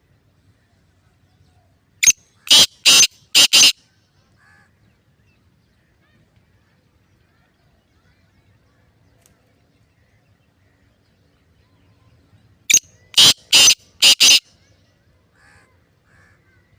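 Black francolin calling: two phrases about ten seconds apart. Each is a short first note and then four loud, harsh notes in quick succession, under two seconds in all.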